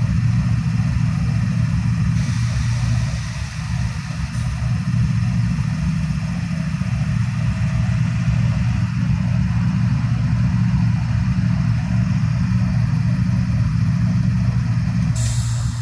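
Several CSX diesel-electric freight locomotives running steadily, a loud, deep, even engine rumble. A short burst of hiss comes in near the end.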